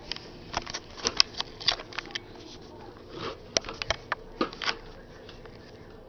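Hard plastic stacking-toy rings clacking against each other and the toy's post as a toddler handles and stacks them: a run of short sharp clacks that stops about five seconds in.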